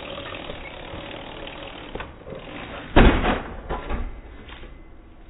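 A loud thump about three seconds in, followed by a couple of smaller knocks: an Oset electric trials bike's wheels striking the edge of a concrete ledge as it tries to climb up, the back tyre hitting. Before it, a faint steady hum.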